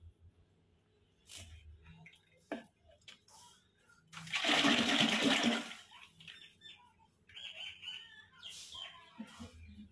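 Buttermilk sloshing in a clay churning pot as a hand swirls through it to gather the butter. One loud swish lasting about a second and a half comes midway, with small splashes and knocks before and after.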